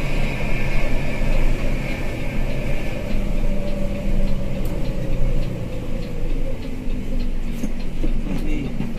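Coach bus heard from inside the cabin while under way: steady engine hum and road noise, the engine note falling from about halfway through as the bus slows. Light ticks come through in the second half.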